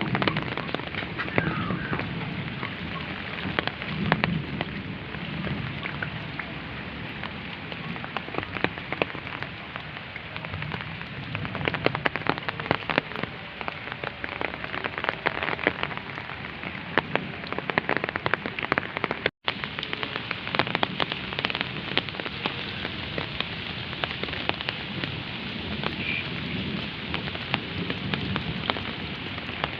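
Steady heavy rain falling, with many sharp drops pattering on surfaces close by. The sound cuts out for a split second about two-thirds of the way through.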